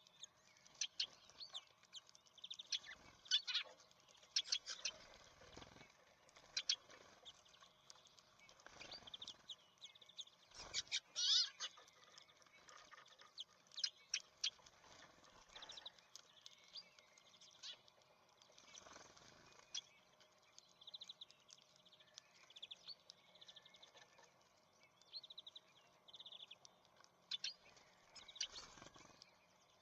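Small songbirds at a seed feeder giving short chirps and call notes again and again, with scattered sharp taps and clicks in between.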